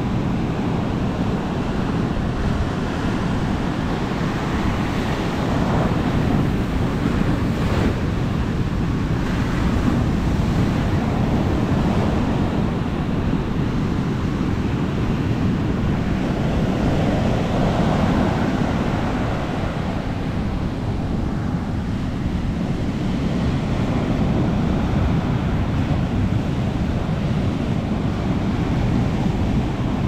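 Ocean surf breaking and washing up a sandy beach, swelling and easing every several seconds, with wind rumbling on the microphone.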